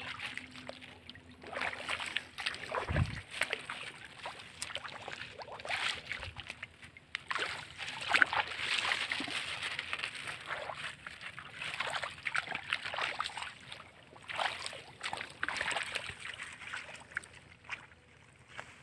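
Wading through the shallow water of a flooded rice paddy: irregular sloshing and splashing around the legs, with a low thump about three seconds in.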